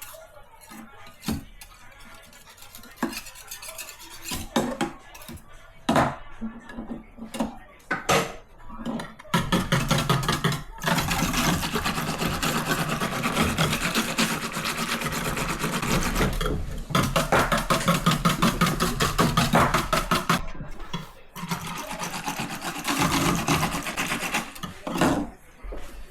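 Kitchen utensils knocking and clinking against dishes. About nine seconds in, a long stretch of fast, rhythmic scraping and clattering begins, like a utensil worked quickly in a bowl or pot, pausing briefly a few times.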